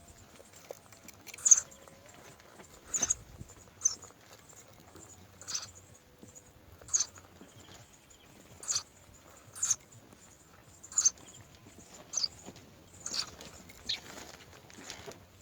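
Birds giving short, sharp calls, roughly one a second, a few coming closer together near the end.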